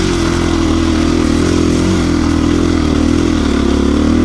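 KTM 350 EXC-F's single-cylinder four-stroke engine running under load at fairly steady revs, the pitch wavering slightly, as the dirt bike climbs loose gravel.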